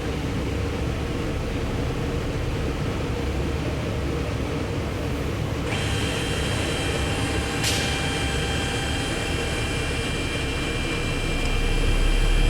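Citizen L20 Swiss-type CNC lathe running with a steady mechanical hum. About halfway through, a live-tool spindle on the gang tool block starts up, adding a steady high-pitched whine that holds at speed.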